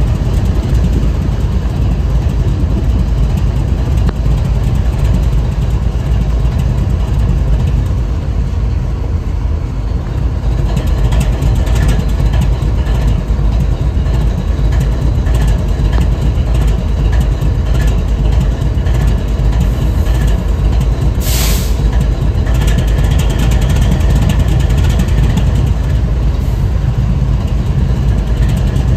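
BNSF freight train's diesel locomotive idling with a steady low rumble. About two-thirds of the way through there is a short, sharp hiss.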